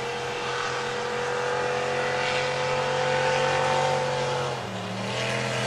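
Supercharged drag boat engine running at part throttle with a steady note; about four and a half seconds in the note drops briefly, then builds again.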